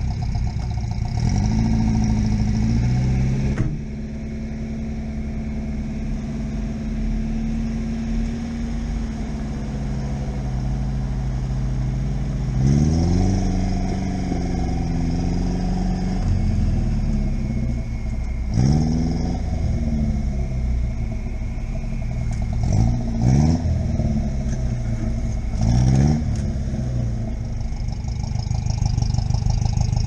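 Chevrolet Niva's engine pulling steadily in a low gear through muddy ruts, easing off about four seconds in, then revving up and dropping back four times in the second half as the wheels work through the mud.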